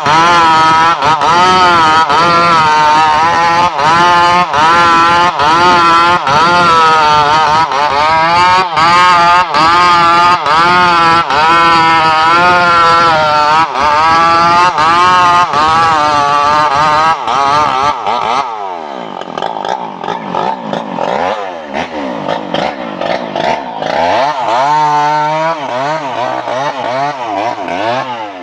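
Stihl MS381 two-stroke chainsaw running hard at high revs, its pitch wavering as it works through wood. About eighteen seconds in it comes off the load, and the engine then revs up and down in repeated throttle sweeps.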